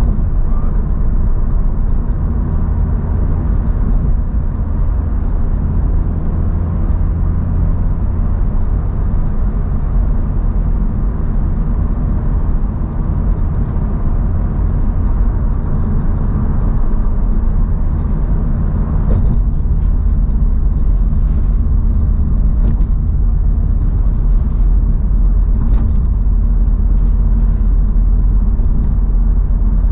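Honda Civic Type R (FL5) driving, with steady low road and engine rumble and a few faint light ticks in the second half.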